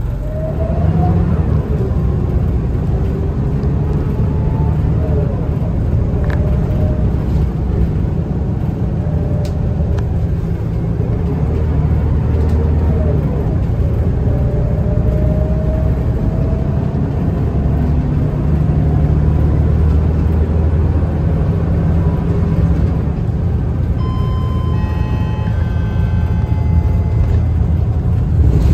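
Cabin noise of a moving city bus: the engine and drivetrain's steady low drone, with a fainter whine that slides up and down in pitch as the bus changes speed.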